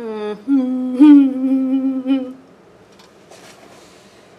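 A man humming with closed lips: a short falling note, then a held, steady hum that gets louder about a second in and stops a little over two seconds in.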